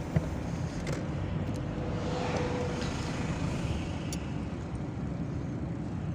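A car being driven, with steady engine and road noise.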